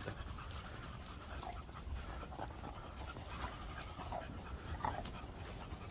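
A dog panting steadily, with a low rumble underneath.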